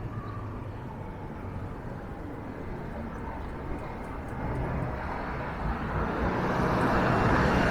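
City street traffic rumble with wind noise on the microphone, and a motor vehicle's engine growing steadily louder over the last few seconds as it draws near.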